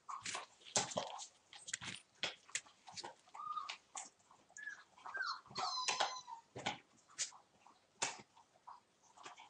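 One-month-old Entlebucher puppies play-fighting: a steady patter of small clicks and knocks, with a few short high whines from a puppy around the middle.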